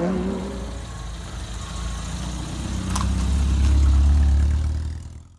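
A car engine running steadily with a low rumble, swelling somewhat past the middle and then fading out near the end, with a single brief click about three seconds in.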